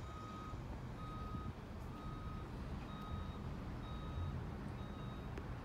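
Garbage truck's backup alarm beeping steadily: six half-second beeps about a second apart, over a low rumble.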